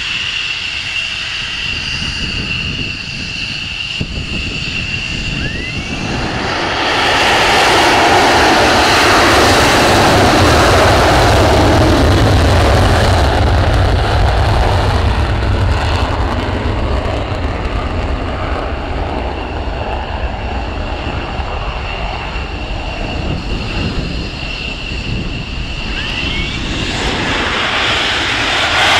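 F-16 fighter jet engine running on the ground. At first it holds a steady high whine at idle. About seven seconds in it is powered up to a loud deep rumble that holds for several seconds, then eases back to the whine, and near the end the level rises again.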